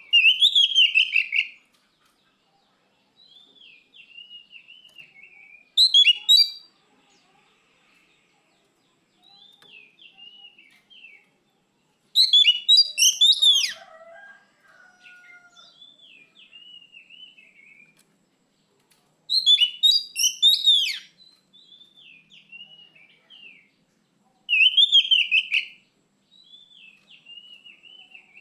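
Oriental magpie-robin (kacer) singing: soft, repeated whistled phrases, broken about every six seconds by much louder, rapid bursts of song.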